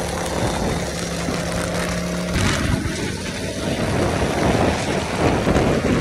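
Modified Ducati V4 superbike engine running at a steady cruise. About two and a half seconds in, the note turns rougher and a little louder as the bike pulls ahead.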